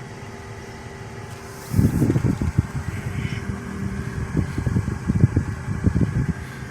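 Car being driven, a steady low hum from inside the vehicle; about two seconds in, loud irregular low rumbling and buffeting starts, lasts about four seconds and dies away.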